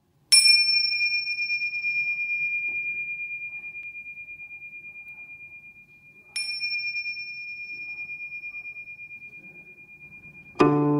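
Small hand cymbals struck together twice, about six seconds apart, each leaving a long, clear high ring with a slow wobble that fades away. Just before the end a plucked string instrument sounds a low chord.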